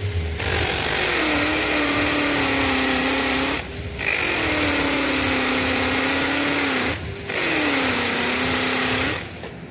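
Bauer cordless drill boring down through a steel base plate's anchor hole into a concrete floor. It runs in three long bursts with short pauses between them, and its motor pitch sags under load and recovers within each burst. It stops shortly before the end.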